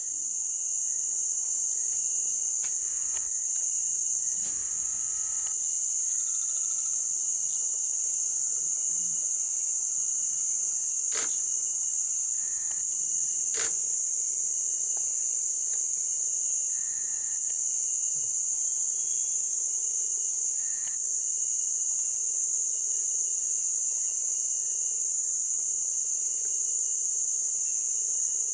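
Dense, steady chorus of insects, one continuous high-pitched trill. Two sharp clicks about two and a half seconds apart near the middle, and a few faint short calls lower down.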